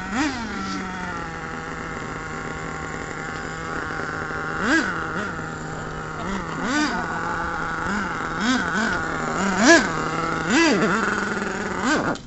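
Radio-controlled car's small engine idling steadily, with about ten short throttle blips that rev it up and let it fall straight back to idle.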